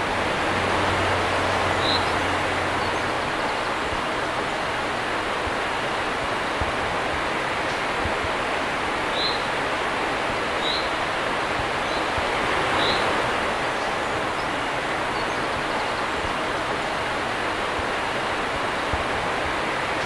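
River water pouring over a low weir and running through shallow rapids, a steady rush of falling water. A bird gives four short high chirps, the first about two seconds in and the rest around the middle.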